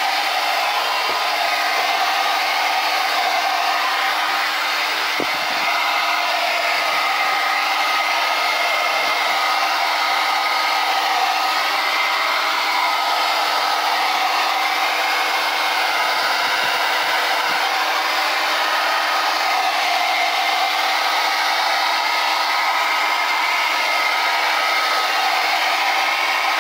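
Handheld hot-air blower running steadily, blowing over wet poured acrylic paint on a canvas: a continuous rush of air with a steady motor whine.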